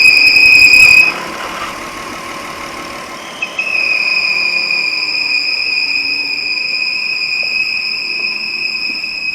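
Volkswagen Touareg engine idling with a loud, steady high-pitched whistle that cuts off about a second in and comes back about two and a half seconds later, the break fitting the crankcase being opened at the dipstick or oil filler. The whistle is air being sucked through a torn crankcase breather (PCV) membrane in the valve cover under strong engine vacuum.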